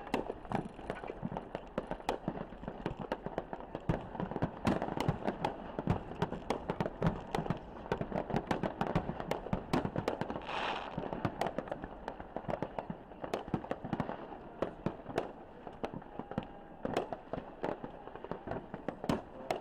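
Fireworks and firecrackers going off in a dense, irregular string of sharp pops and bangs, with a brief hiss about ten seconds in.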